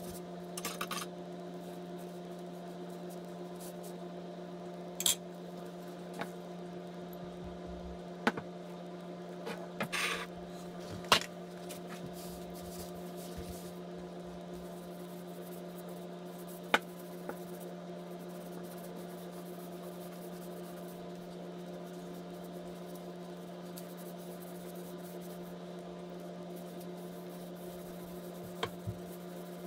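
Scattered light clicks, taps and rubbing from handling a can of wood stain, its stir stick, a sheet of paper and a stain pad while wiping stain onto a wooden walking stick, over a steady low hum. A handful of sharp knocks stand out, the loudest about a third of the way in.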